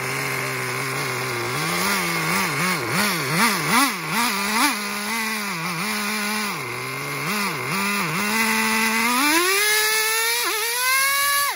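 Small two-stroke nitro glow engine of an RC monster truck running with its wheels off the ground, the throttle blipped so the revs rise and fall quickly, then climbing to a high, steady, buzzing rev over the last few seconds with a brief dip.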